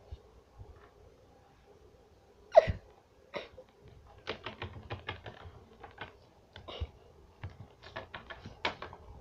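Small plastic toy figures being handled on a wooden tabletop: one sharp knock about two and a half seconds in, then a run of irregular light taps and clicks.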